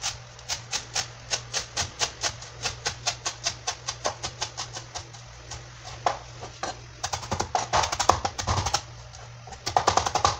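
Chef's knife chopping fresh cilantro on a plastic cutting board: steady knocks of the blade, about four a second. After a short pause, about two-thirds in, comes faster, denser chopping as the leaves are minced fine.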